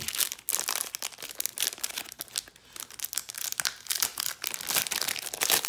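The paper wrapper of a 1993 Topps football card pack being torn and peeled open by hand, a run of irregular crinkling and tearing.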